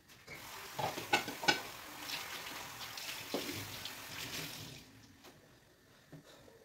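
Water running and splashing for about four and a half seconds, with a few clinks and knocks about a second in, then it stops.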